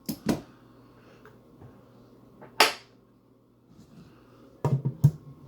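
Locked wooden cabinet door being tugged, knocking and rattling against its hidden magnetic latch without opening. There are two knocks at the start, a sharper one in the middle and a quick cluster of knocks near the end.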